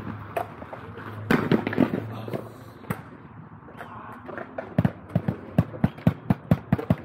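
Inline skate wheels rolling on concrete, then a clatter of hard knocks and scraping about a second in as the skater hits the concrete ledge and goes down. Near the end comes a steady run of sharp clicks, about four a second.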